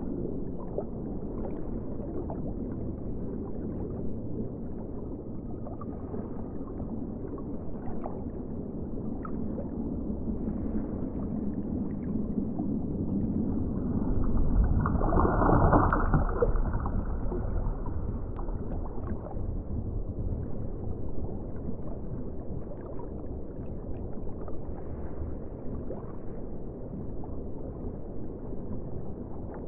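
Underwater ambience: a steady, muffled low rush of water with faint scattered clicks, swelling louder for a couple of seconds about halfway through.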